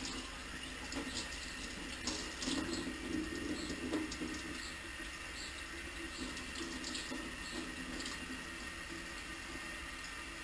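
Kitchen tap running steadily into a stainless steel sink while a raw mackerel fillet is rinsed under it by hand, with small irregular splashes as the water breaks over the fish and hands.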